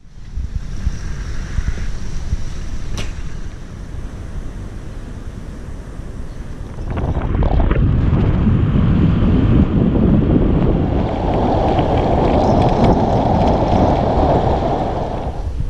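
Wind rushing over the microphone of a camera riding on a moving motorbike, a steady low rumble that grows heavier about seven seconds in.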